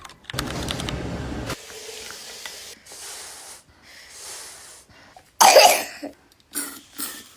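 A sick baby coughing: one loud cough about five and a half seconds in, then two smaller coughs near the end, after several seconds of faint breathy hissing.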